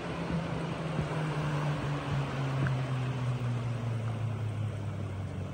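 A motorboat engine droning steadily, its pitch slowly falling, over the wash of small waves and some wind.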